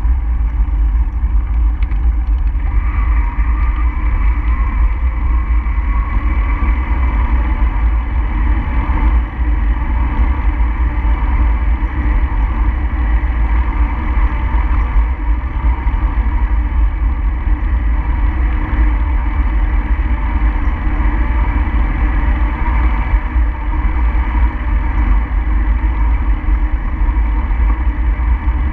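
Steady wind rumble on the microphone with road noise from travelling along a road. It is loud and unbroken, with no separate events.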